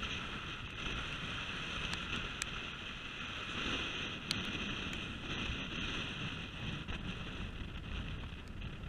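Wind rumbling and buffeting on the microphone, with a steady high hiss above it.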